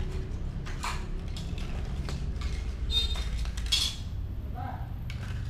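A few short, light clinks and rattles, the sharpest about three and four seconds in, over a steady low hum.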